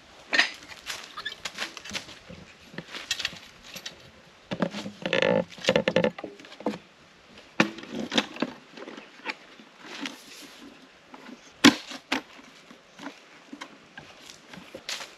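A metal-framed folding table being unfolded and set up: irregular rustling, clicks and clanks of the folding legs and top, with a busy stretch of handling about a third of the way in and one sharp loud click about three-quarters of the way through.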